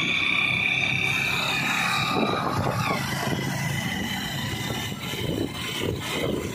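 Motorcycle engine running and wind buffeting the microphone while riding along a road, with a steady rumble throughout. A steady high tone sounds until about two seconds in, then stops.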